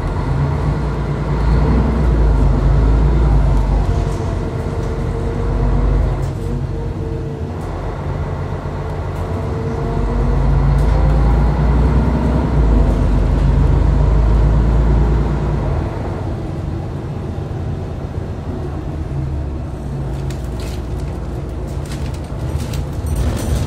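Mercedes-Benz O530G articulated bus heard from inside the passenger cabin while driving: the engine rumbles and its ZF automatic gearbox whines, the whine rising and falling in pitch. The bus pulls hard twice, loudest a couple of seconds in and again from about ten to fifteen seconds, then runs more quietly after about sixteen seconds.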